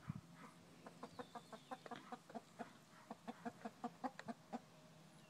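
A flock of hens clucking as they feed: a quick run of short clucks, several a second, that starts about a second in and stops shortly before the end.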